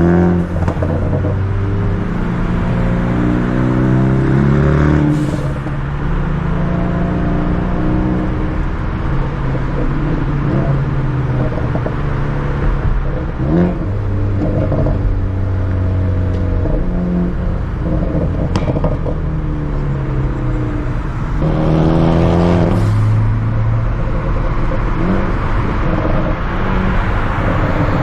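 Ford Focus ST's turbocharged four-cylinder through a Borla cat-back exhaust, revving up repeatedly with the pitch climbing and then dropping back. A few sharp pops crack out of the exhaust along the way, from a tune set up for pops and crackles.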